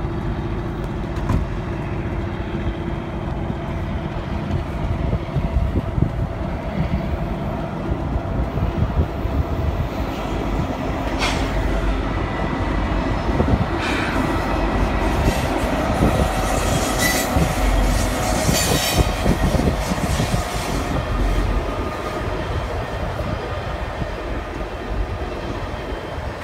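EMD SD60E diesel locomotive leading an intermodal freight train past, its engine rumbling, then the cars rolling by with wheels clicking over the rail joints. A few brief high-pitched wheel screeches come around the middle.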